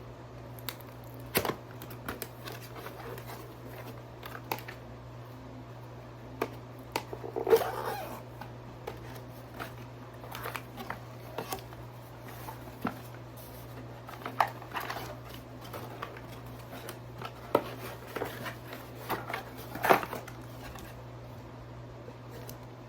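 Packaging being handled and opened: scattered clicks, taps and short rustles of cardboard and plastic, over a steady low hum.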